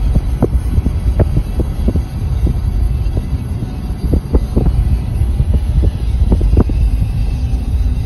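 Car driving on a road, heard from inside the cabin: a loud, steady low rumble of road and engine noise, with frequent short, irregular knocks.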